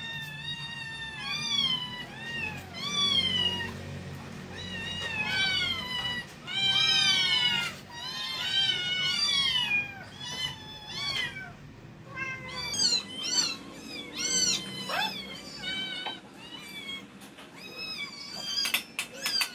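A group of hungry month-old kittens meowing over one another without pause, in high calls that rise and fall. A few sharp metal clinks of a spoon on a food tin come near the end.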